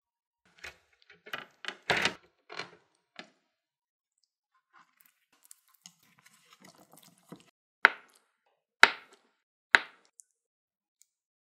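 Bamboo rolling mat clattering as its slats are handled, then faint clicking as it is unrolled. Near the end come three sharp knocks about a second apart, the loudest sounds, as a knife cuts through a rolled omelette onto a wooden cutting board.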